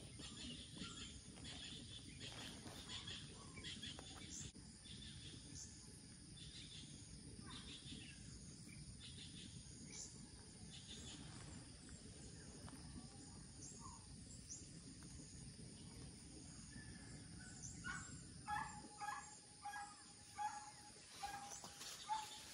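Faint early-morning outdoor ambience: scattered bird chirps over a soft steady background hiss, and near the end a run of about six short repeated calls, roughly two a second.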